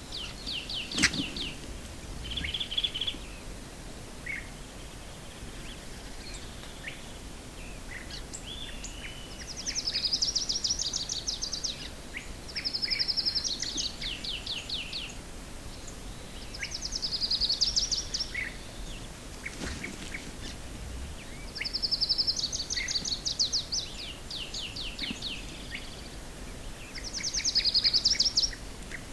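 Wild birds calling outdoors: short, rapid trilled phrases repeated every few seconds, with scattered short chirps between them.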